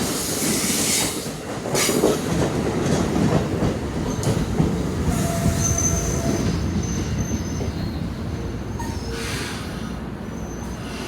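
Commuter train rolling slowly into a station, its wheels squealing on the rails in short high tones over a steady rumble, with several bursts of hiss. The train grows gradually quieter as it slows.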